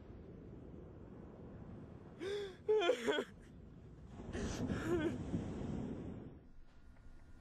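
A man sobbing: short, gasping wails about two seconds in, then a longer wavering cry from about four to six seconds.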